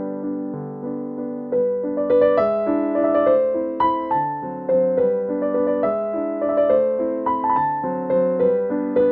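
Background piano music: a gentle melody of struck notes, each dying away, growing fuller and louder about a second and a half in.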